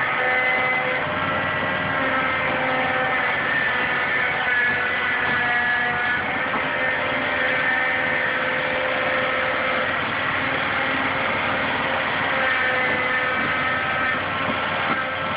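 Caterpillar 3208 V8 diesel engine of a 1986 CAT 225LC excavator running steadily while the boom and bucket are worked, with whining tones from the machine that shift in pitch every second or so.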